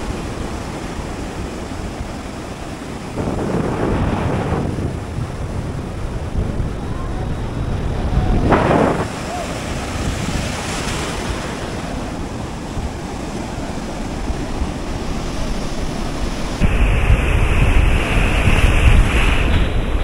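Sea waves breaking and washing up a sandy beach, swelling twice, with wind on the microphone. Near the end the wind on the microphone abruptly becomes much stronger and heavier.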